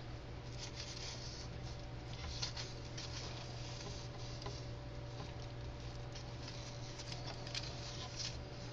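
Irregular light crackling and scratching as a hand moves through bark-chip substrate and along branches and artificial plants in a tree frog terrarium, with the sharpest clicks about two and a half seconds in and again near the end. A steady low hum runs underneath.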